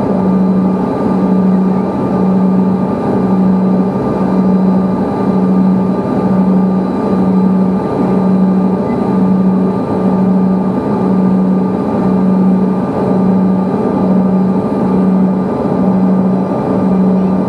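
Steady aircraft cabin noise heard from inside a plane, with a low hum that swells and fades about once a second.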